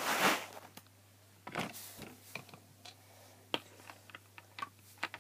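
Small plastic toy figures and wooden toy furniture handled on a tabletop: a loud rustle at the start, then a string of light, scattered clicks and taps as pieces are picked up and set down.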